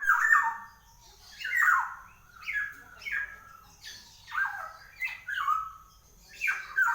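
Black-naped oriole (kepodang) calling in full voice: a run of loud, short calls that fall in pitch, repeated about once or twice a second.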